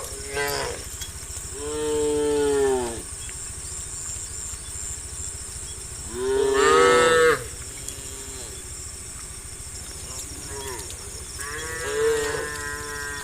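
Cows mooing: a short moo at the start, then long, falling moos about two seconds in, about six seconds in (the loudest) and near the end. A steady high whine of insects runs underneath.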